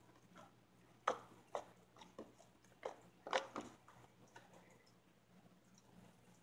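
Green slime worked between the hands, squeezed and stretched, giving a run of short wet clicks and pops between about one and four seconds in.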